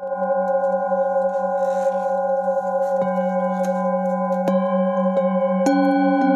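Several metal singing bowls struck one after another with a wooden mallet, ringing on together in long, overlapping tones, the lowest with a slow wavering pulse. A fresh strike about three seconds in, and a few more near the end, each add a new tone.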